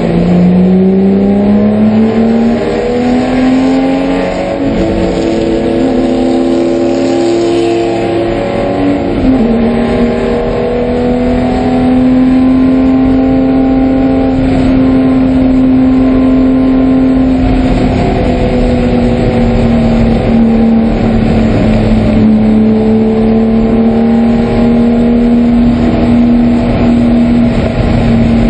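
Porsche 996 race car's flat-six engine heard from the cockpit, climbing in pitch under hard acceleration, with an upshift about nine seconds in, then holding steady revs at speed. A hiss of rain and tyre spray from the soaked track runs under it.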